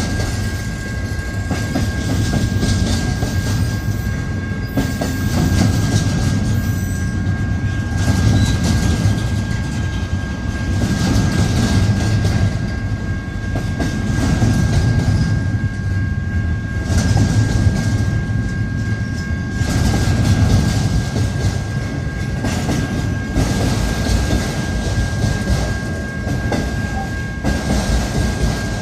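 Intermodal freight train rolling past on the rails, a steady loud rumble of cars that swells and eases every few seconds.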